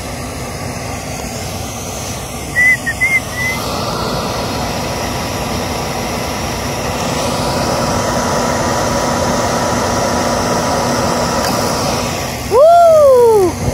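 York rooftop unit's gas heat section starting on a new ignition module: a steady rushing that builds over several seconds as the unit comes up. Near the end a short, loud tone sweeps up and back down.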